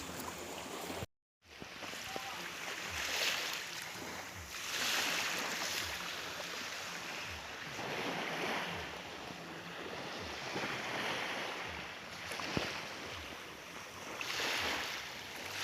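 Ocean surf: waves washing in and breaking, swelling and easing every few seconds, with wind on the microphone. The sound cuts out briefly about a second in.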